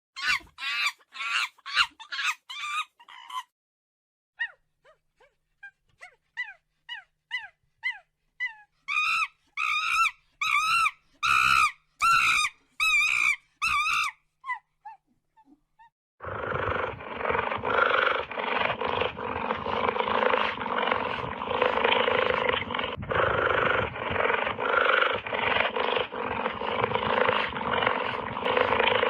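Animal calls: runs of short, repeated pitched calls, loudest in a run of about two calls a second near the middle. From about halfway on, a dense, continuous din of animal noise takes over.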